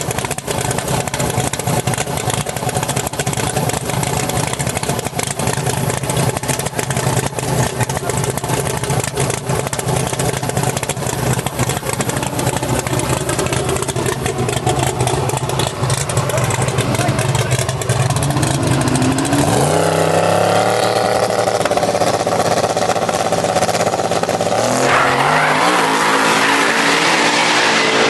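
A turbocharged pickup truck engine idling loud and lumpy with its bay open. About twenty seconds in this gives way to race truck engines revving, then accelerating hard down the drag strip, which is loudest near the end.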